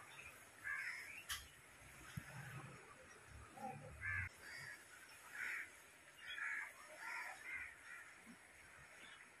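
Crows cawing, a string of short, faint calls repeated every half-second to a second, with one sharp click about a second in.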